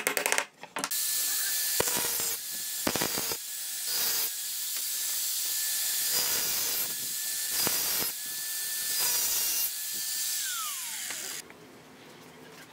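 A few hammer blows on nails, then an electric angle grinder with a cutting disc running and grinding down the nail points sticking through a pine board: a steady motor whine under a loud high grinding hiss that comes in repeated passes. Near the end the grinder is switched off and its whine falls away as the disc spins down.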